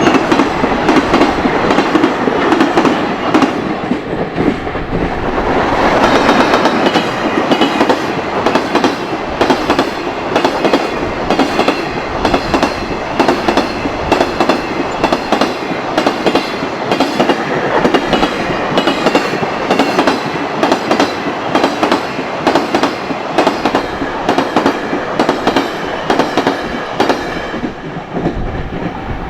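Long high-speed container freight train passing at speed, its wagon wheels clacking over the rail joints in a fast, steady rhythm over a continuous rolling rumble.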